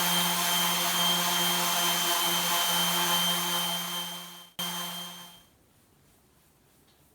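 Electric power tool motor running steadily with a hum and hiss, then winding down and stopping about five seconds in.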